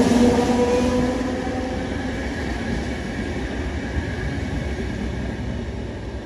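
ÖBB Class 4020 electric multiple unit pulling away: its motor whine fades within the first second or two, leaving a steady rolling rumble of wheels on rails that slowly gets quieter as the train moves off.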